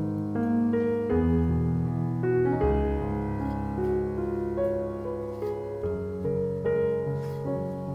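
Background piano music: a melody of changing notes over held bass notes.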